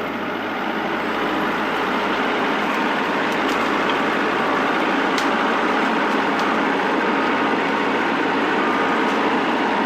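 Farm tractor engine running steadily, getting a little louder about a second in, with a few faint clicks over it.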